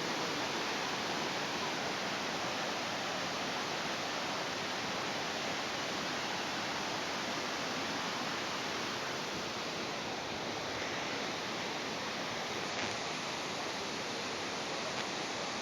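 Steady rush of falling water from a waterfall, an even hiss that holds at one level without a break.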